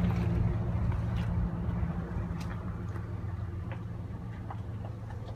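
An engine idling steadily, a low even hum, with a few faint clicks over it.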